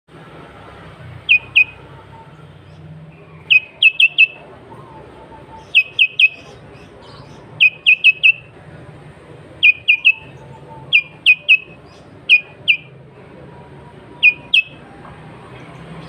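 Sooty-headed bulbul (kutilang) calling: short, sharp notes in quick groups of two to four, repeated about every two seconds.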